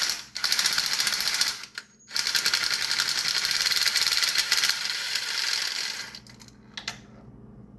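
Ratchet wrench clicking rapidly as it is spun on a spark plug, in a short run and then a longer run of about four seconds after a brief pause near two seconds.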